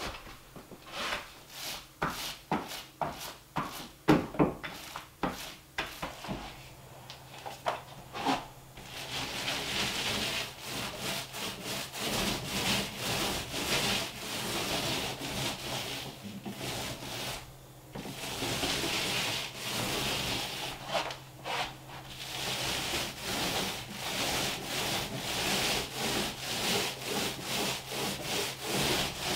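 Paint roller on an extension pole rolling paint onto drywall, a rhythmic sticky swishing with each up-and-down stroke, broken by a short pause about halfway through. Before the rolling starts there are several seconds of scattered clicks and scrapes.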